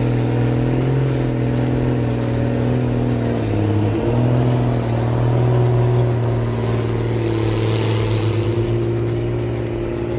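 Heavy forestry or excavator diesel engine running hard under load, its pitch sagging briefly about four seconds in and then recovering.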